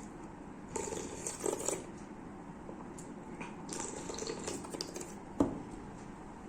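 Wet eating sounds close to the microphone, in two short bursts, with one sharp click near the end.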